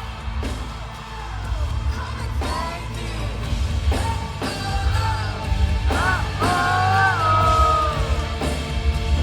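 Live pop-rock concert music heard from close to the stage: a heavy bass and drums under a sung vocal line with sliding, held notes, with whoops from the crowd.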